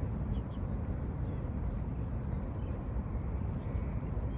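Steady low outdoor rumble, with two faint high bird chirps about half a second in.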